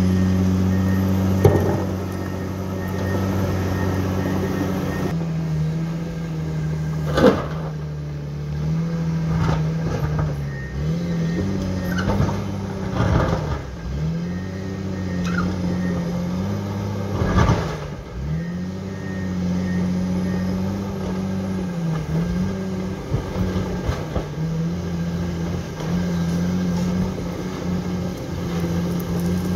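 Komatsu D61 crawler dozer's diesel engine running under changing load, its pitch sagging and picking up again over and over as the machine pushes earth and shuttles back and forth. A few sharp knocks break through, the loudest about seven seconds in and again near the middle.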